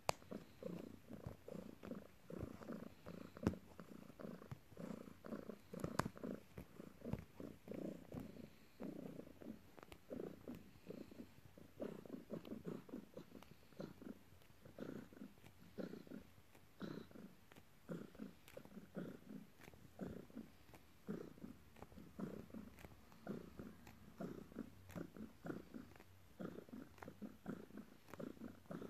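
Tabby cat purring steadily at close range while kneading a blanket, a rapid pulsing rumble, with two sharp clicks a few seconds in.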